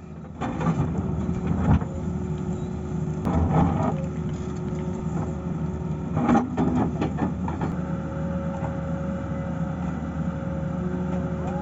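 Excavator's diesel engine running steadily, with a few short metallic knocks and clatters from the machine working, about two, three and a half, and six and a half seconds in.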